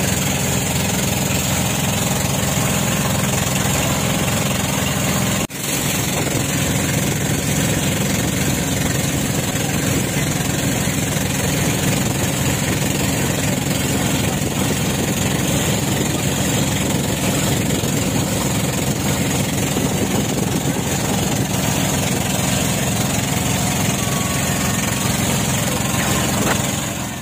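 An engine running steadily, with a constant hiss over it. The sound breaks off for an instant about five and a half seconds in, then carries on unchanged.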